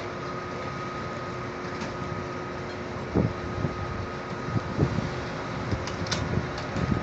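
Steady mechanical hum of a parked tour coach running, with a faint steady whine over it. A few dull knocks come in from about three seconds in as luggage is handled in the coach's baggage hold.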